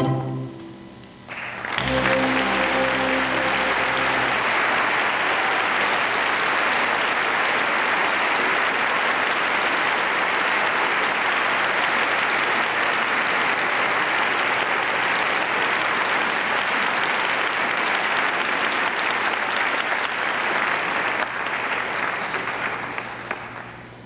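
An orchestra plays its closing chords, and a theatre audience breaks into sustained applause about two seconds in. The clapping stays steady, then fades out near the end.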